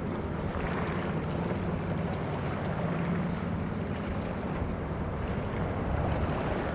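Container ship passing, its engine giving a steady low drone, over a wash of water noise and wind on the microphone.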